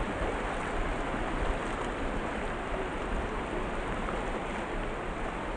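Steady wash of sea surf on a beach, with wind rumbling on the microphone.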